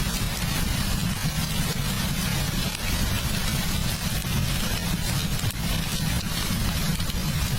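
Steady heavy rain over a continuous low rumble.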